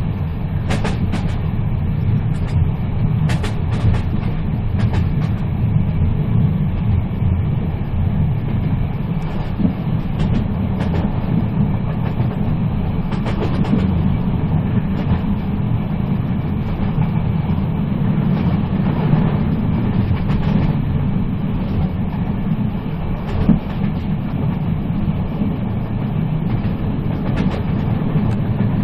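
Moving train running on the rails: a steady low rumble with occasional sharp clicks, several of them in the first few seconds.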